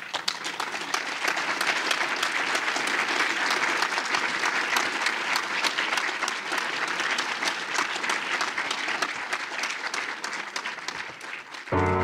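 A large audience applauding: dense, steady clapping that eases off near the end, when music starts abruptly.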